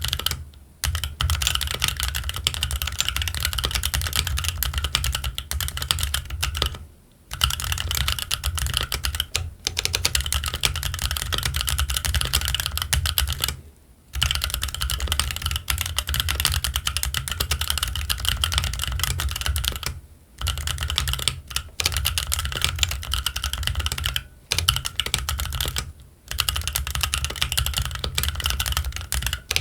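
Fast, continuous typing on a Keychron Q1 mechanical keyboard fitted with Gazzew Boba U4T tactile switches and ABS Cherry-profile keycaps: a dense run of keystrokes broken by several brief pauses.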